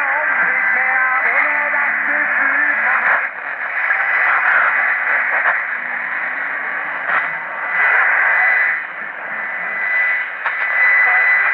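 Shortwave AM broadcast on 6005 kHz playing through a Tecsun PL-660 receiver's loudspeaker: thin, band-limited sound, with music for the first three seconds, then noisier programme audio that swells and fades. A steady high whistle runs under it.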